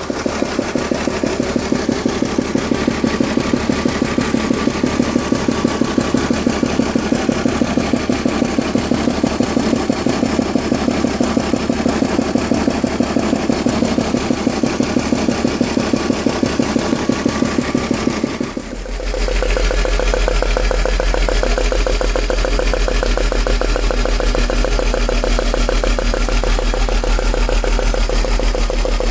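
BMW E46 328Ci's M52B28TU straight-six idling with a rhythmic knocking, a noise the owner traced to a loose spark plug on cylinder 5 and completely worn-out plugs. About two-thirds of the way through, the sound changes abruptly and becomes deeper, with a strong low hum.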